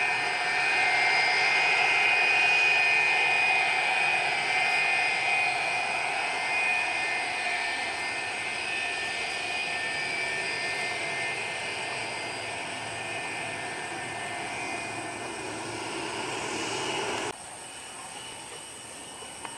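McDonnell Douglas MD-83's rear-mounted Pratt & Whitney JT8D-219 turbofans whining at taxi power as the jet rolls past, a steady high whine over a rushing noise that slowly fades. The sound cuts off abruptly near the end.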